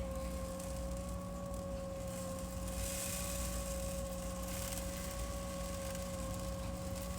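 Automatic litter box motor running steadily through its cleaning cycle: a steady whine, with a soft hiss partway through.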